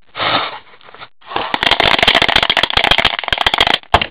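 A large many-sided plastic die rattling rapidly inside a clear plastic cup as it is shaken to roll it: a brief shake first, then about two and a half seconds of dense, fast clattering, ending in a single sharp knock.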